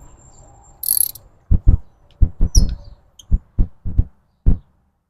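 A short hiss, then a run of about ten dull, low thumps spread over three seconds, irregularly spaced. The sound then cuts off to dead silence.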